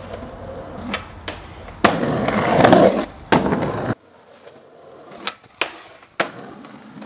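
Skateboard wheels rolling on concrete, loudest for about two seconds, with a couple of board clacks. After an abrupt change, a few sharp clacks as the board pops and strikes a metal handrail, then slides down it.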